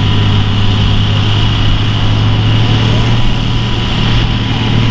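International Harvester farm tractor's engine running hard and steady under full load while dragging a weight-transfer pulling sled, holding one low pitch throughout.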